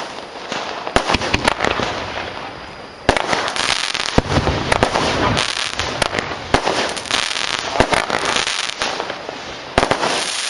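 A 16-shot, 20 mm consumer fireworks cake firing: sharp pops of shots launching and bursting, with dense crackle between them. Loud fresh shots come about three seconds in and again near the end.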